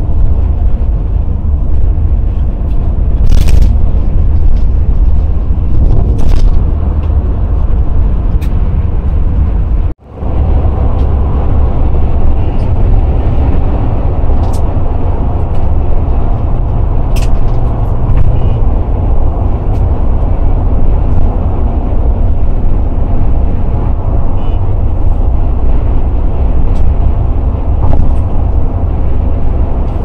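Cabin noise of a taxi at highway speed: a loud, steady low rumble of engine and tyres on the road. The sound drops out for a moment about ten seconds in.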